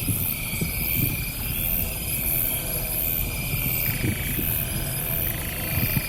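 Outdoor night ambience: an uneven low rumble and buffeting, typical of wind on the microphone, under high, rapidly repeated insect chirping. No train horn sounds.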